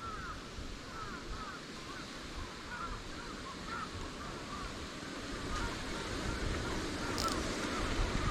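Many short, arched bird calls repeating several times a second over steady wind noise, thinning out after about six seconds as the wind grows a little louder.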